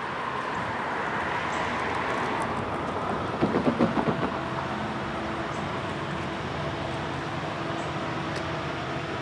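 Distant approaching freight train led by an EMD SD70ACE diesel locomotive with a two-stroke V16 engine: a steady rumble with a faint low engine hum. About three and a half seconds in there is a brief, louder run of rapid pulses.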